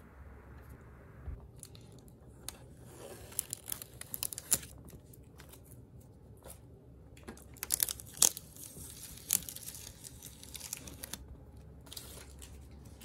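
Handling noise from hands moving over the plastic case of a gaming PC: scattered light clicks and crackles. They come in two flurries, about four seconds in and around eight seconds in.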